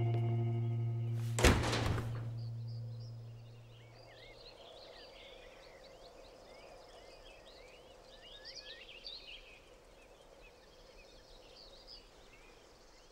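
The song's last chord rings out and fades over the first few seconds, with one sharp thump about a second and a half in. Then faint birds chirping and twittering over a faint steady hum.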